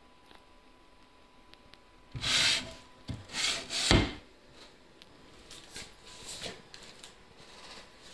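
A few short rubbing, scraping strokes of handling noise, starting about two seconds in and loudest around the middle, with smaller scrapes after. A faint steady high hum runs underneath.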